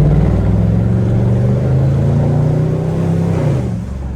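Chevrolet Camaro SS's 6.2-litre V8 exhaust rumbling at low speed without hard acceleration, a deep steady rumble that drops in pitch and level near the end.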